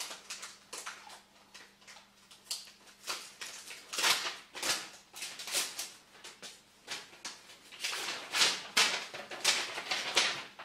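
A paper envelope being opened and a folded letter pulled out and unfolded: irregular paper rustling and crinkling, louder and busier from about four seconds in.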